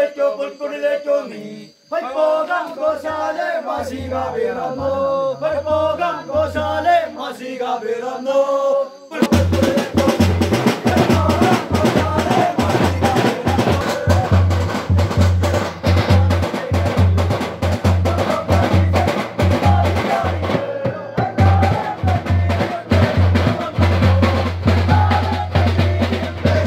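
A group singing a Malayalam Christmas carol, with a few low drum beats under the voices; about nine seconds in, loud drumming comes in with a fast, dense beat and carries on with the music.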